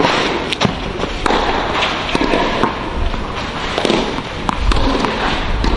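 Tennis rally on a clay court: a tennis ball repeatedly struck by rackets and bouncing on the clay, giving sharp knocks every half second to second or so.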